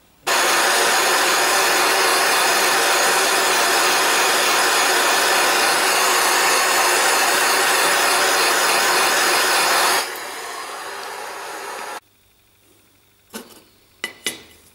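An electric tool motor running steadily with a loud, even whirring for about ten seconds, then dropping to a lower level and cutting off abruptly. A few sharp clicks follow near the end.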